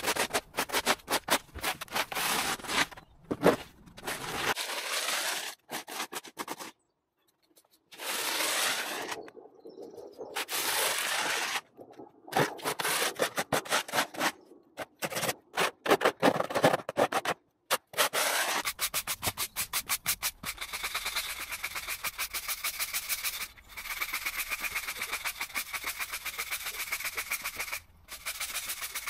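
Stiff brooms sweeping leaf litter and soil off a tarmac footpath, the bristles scraping in short, uneven strokes with a few brief breaks. About two-thirds of the way in, this gives way to a yard brush scrubbing moss off the path in fast, even strokes.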